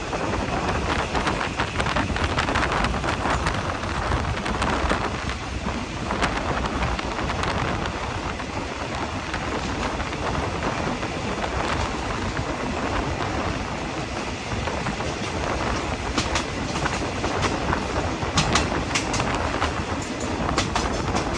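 Passenger train running along the track, a steady rumble with wheels clicking over rail joints, the clicks sharper and more frequent near the end.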